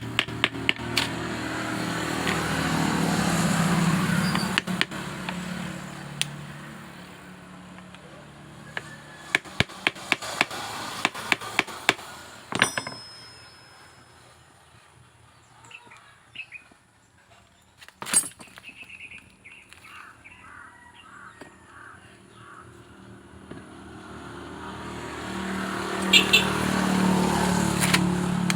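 Runs of quick, sharp ratchet-wrench clicks at the start and again around ten seconds in, as the starter is unbolted. Road vehicles pass, swelling and fading twice.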